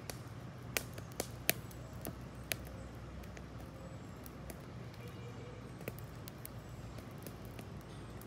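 Wood fire burning in a steel campfire ring, crackling with sharp pops: a quick run of them in the first few seconds, the loudest about a second and a half in, then only the odd pop.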